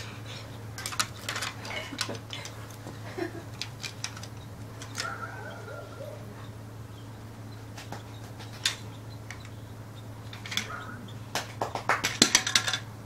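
Hard plastic Duplo bricks and toy cars clicking and clacking as a toddler handles them: scattered light taps, with a quicker flurry of clicks near the end, over a steady low hum.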